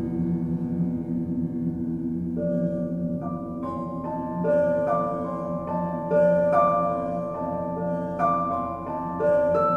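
Live electronic music: a steady low drone, joined a couple of seconds in by a sequence of struck pitched notes in a repeating pattern that builds in loudness.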